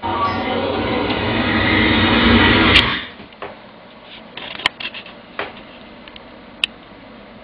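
Loud rubbing and rustling noise right on the phone's microphone for about three seconds, stopping suddenly, then quieter with scattered sharp clicks and taps.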